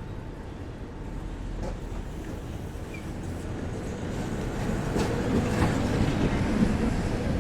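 Tram running on rails, its rumble growing louder as it approaches, with a couple of sharp clicks from the wheels on the track.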